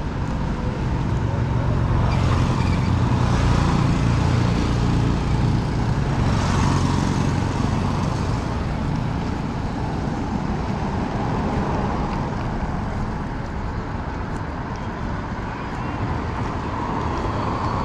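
Street traffic: a steady low rumble of engines with vehicles passing, loudest from about two to eight seconds in.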